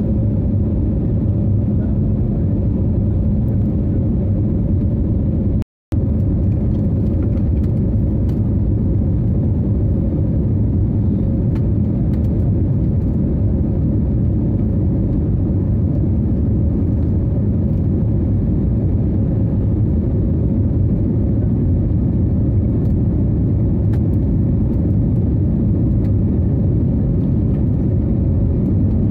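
Steady jet airliner cabin noise during the climb after takeoff: engine and airflow noise heard through the cabin, low and even, with a faint steady hum. The sound cuts out completely for a moment about six seconds in.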